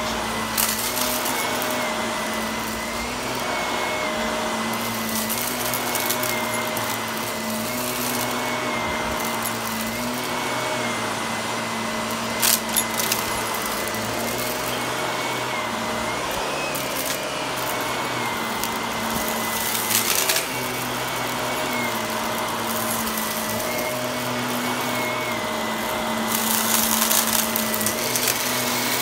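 Shark Navigator upright vacuum running on carpet, a steady motor whine whose pitch wavers slightly as it is pushed back and forth. Several short crunches and crackles of crumbs being sucked up, loudest about twelve and twenty seconds in, with a longer stretch of crackling near the end.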